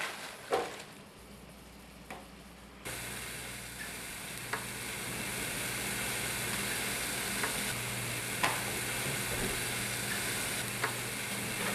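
Hamburger patty sizzling on a George Foreman contact grill: a steady hiss with a low hum that starts abruptly about three seconds in, with a few faint clicks over it.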